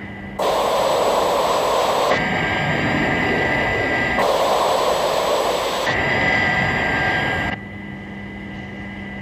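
Jet roar of Thunderbird 2 in flight, a loud hiss that shifts in colour a few times and carries a steady high whine in places. About seven and a half seconds in it drops to a quieter cockpit hum with the same high whine.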